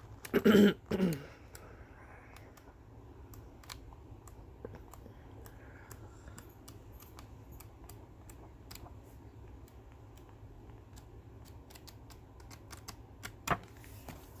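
Sheets of a 6x6 scrapbook paper pad being leafed through and handled: soft scattered paper clicks and rustles. A short loud burst of the voice comes just after the start.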